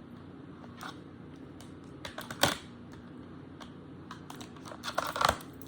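Light plastic clicks and taps from handling a phone and its removed case on a wireless-charger alarm clock, scattered and irregular, loudest about two and a half seconds in with another cluster near the end, over a steady low hum.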